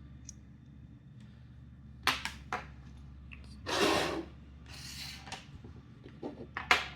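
Small hard metal parts of a fidget slider being handled: a few clicks, a short scraping rub about four seconds in, and a sharp click near the end.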